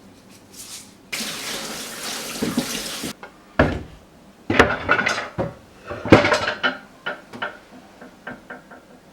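Kitchen tap running for about two seconds, then pots and dishes clattering and knocking in the sink.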